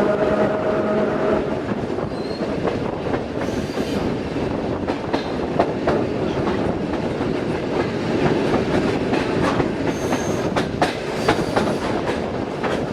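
Train running along the rails, a steady rumble with irregular clicks of the wheels over rail joints. A steady pitched hum sounds for the first second or so.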